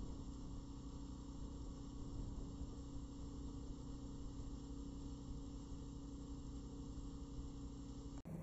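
A motorboat's engine runs at a steady speed, a constant low drone with the wash of the wake beneath it, cutting off abruptly just before the end.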